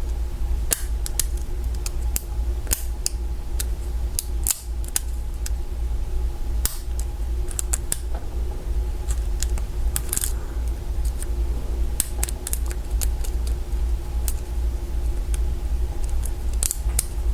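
Hook pick and tension wrench working the pins of a Kwikset mortise lock cylinder during single-pin picking: small, irregular metallic clicks and scrapes. A steady low hum runs underneath.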